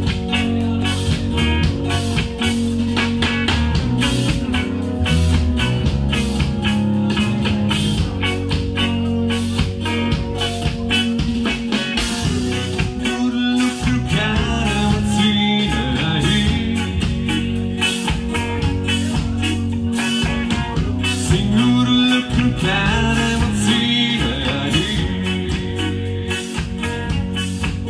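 Live rock band playing: electric guitars through amplifiers, bass guitar and drums, with a steady beat.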